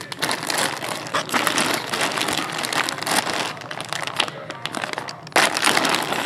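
Thin plastic bag crinkling and rustling as hands pull it open, with many quick sharp crackles, growing louder near the end.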